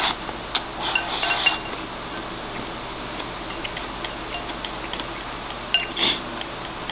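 Chopsticks clicking and scraping against a ceramic donburi bowl as rice and egg are shoveled into the mouth, with a cluster of clicks and shoveling noises in the first second and a half, scattered light ticks after, and another short burst near the end.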